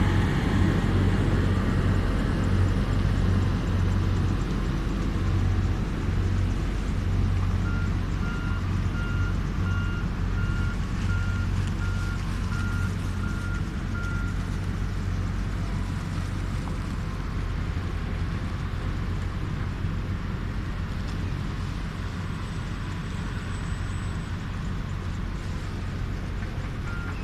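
Steady low engine rumble, slowly fading, with a reversing alarm beeping about one and a half times a second for several seconds starting about eight seconds in, then again near the end.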